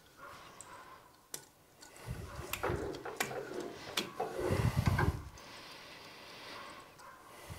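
Clicks and knocks of metal parts being handled as a lathe collet chuck is clamped, with rustling handling noise. It is sparse at first and busiest from about two to five seconds in.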